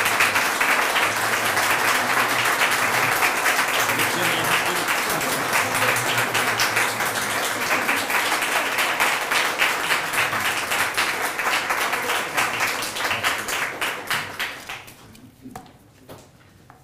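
Audience applauding, a long round of clapping that fades away near the end.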